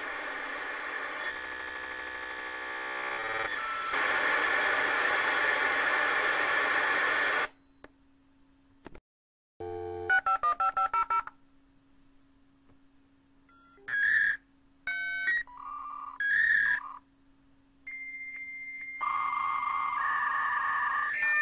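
Telephone and dial-up modem tones. A loud hiss of data noise cuts off suddenly about seven seconds in. About ten seconds in comes a quick run of touch-tone dialing beeps, then a few short beeps, a steady high tone, and shifting modem tones near the end.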